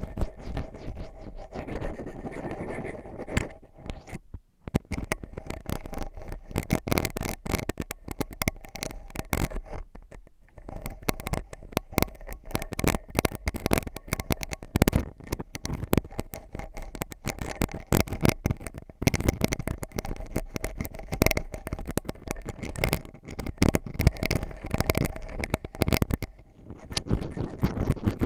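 An ear pick scratching and tapping in close, dense rapid clicks and scrapes, with brief pauses about four and a half seconds in, about ten seconds in, and near the end.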